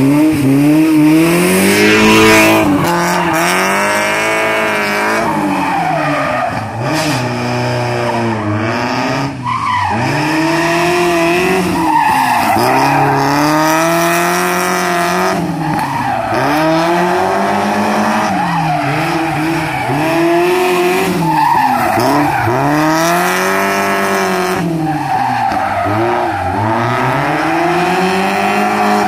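Mazda MX-5's four-cylinder engine driven hard through an autotest course, its revs climbing from the start line and then rising and falling every couple of seconds as it accelerates and backs off between manoeuvres, with tyres squealing and skidding through the tight turns.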